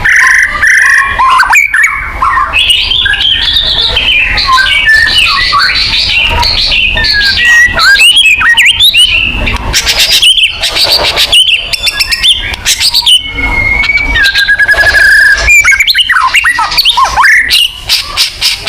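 White-rumped shama (murai batu) singing its loud territorial song without pause: a varied run of rich whistles and slurred rising and falling notes. Fast stuttering trills come about ten seconds in and again near the end.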